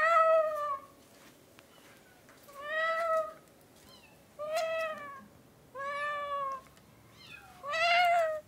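A person imitating a cat's meow to call a cat: five drawn-out meows, each bending in pitch, spaced about one and a half to two seconds apart.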